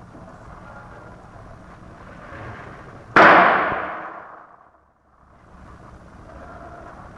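A Chinese wedding firecracker going off: a single very loud bang about three seconds in, ringing out and fading over about a second and a half.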